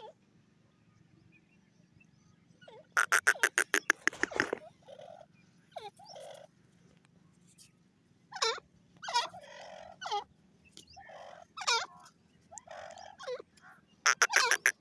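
Grey francolin calling: a fast run of sharp repeated notes about three seconds in, then a string of separate shorter calls, and another fast run near the end.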